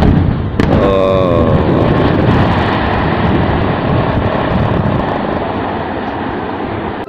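Dynamite blasting in a rock quarry: a sudden loud blast at the start and a second sharp report about half a second later, followed by a long, loud rumble of the explosions and tumbling rock that slowly weakens and cuts off suddenly.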